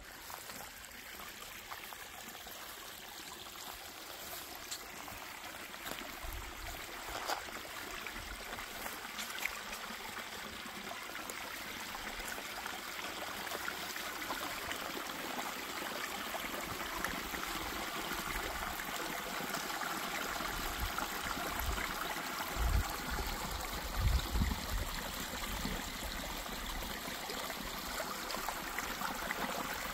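Shallow creek water trickling and babbling over rocks, slowly growing louder, with a few dull low thumps a little past the middle. The normally dry seasonal creek is running with runoff after weeks of rain.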